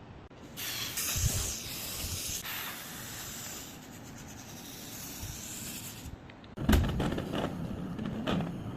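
A spray hissing steadily for about five seconds, then stopping, followed by a run of sharp clicks and knocks.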